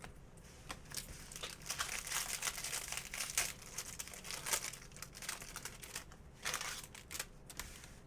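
Foil wrapper of a baseball card pack being torn open and crinkled in the hands: an irregular run of crackling and rustling.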